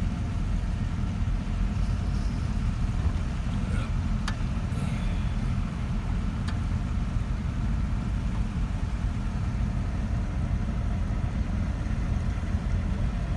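A car driving at a steady pace: an even, low rumble of engine and tyres on the road, with a couple of faint clicks about four and six and a half seconds in.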